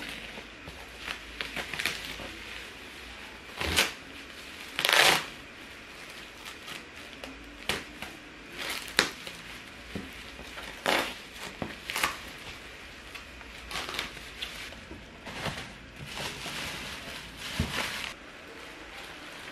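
Black bubble wrap being cut and pulled off a cardboard box: irregular crinkling and rustling of plastic in uneven bursts, the loudest about five seconds in.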